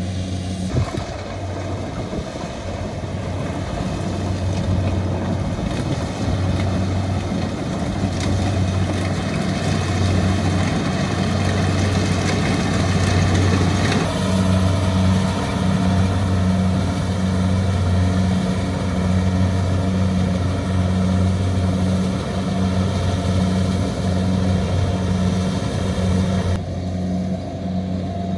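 Kubota rice combine harvester's diesel engine running steadily under load, a low, evenly pulsing hum with machinery noise over it. The sound shifts abruptly about halfway through and again near the end.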